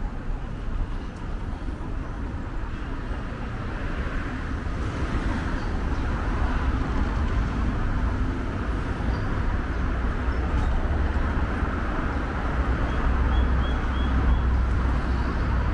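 Steady road traffic on a wide city avenue: the rumble and tyre noise of passing cars and buses. A heavier low rumble builds after about four seconds and stays through the later part.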